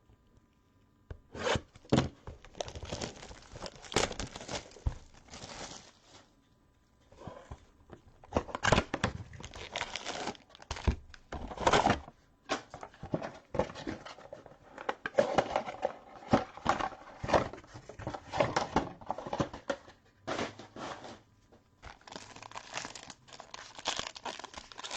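Trading card packaging being torn open and crumpled by hand: irregular ripping and crinkling of wrapper plastic, with two short pauses.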